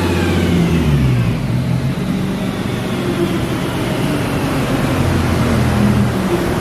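Car engine running, its pitch rising about a second in and then holding and shifting as the revs change.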